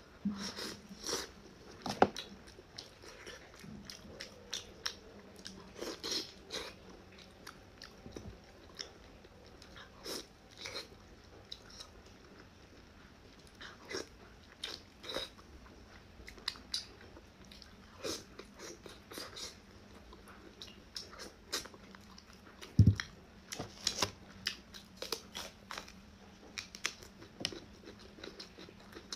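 Close-miked eating of saucy braised meat: irregular wet chewing, lip smacks and sucking clicks, with a single dull thump a little before the end.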